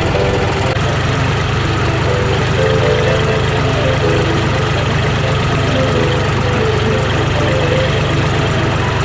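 Tractor diesel engine running steadily at low revs while driving, heard close up from the tractor itself, with a fast even low pulse.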